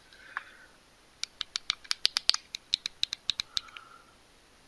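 A quick run of sharp clicks, about six a second, lasting a couple of seconds, from the side push-buttons of a Baofeng UV-5R handheld radio being pressed repeatedly. The clean clicks show the rubber pushers now line up with the switches underneath.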